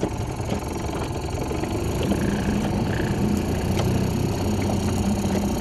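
Small Yamaha outboard motor running at low revs, close to stalling, with a steady low hum.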